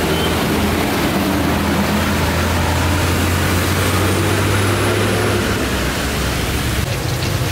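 Motor vehicle engine running close by as a steady low hum that eases off about five and a half seconds in, over a constant haze of road noise.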